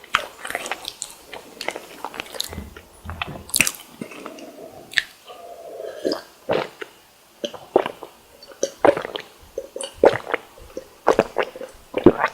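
Close-miked eating of a fried snack: bites and chewing with irregular crackles and wet, squishy mouth sounds.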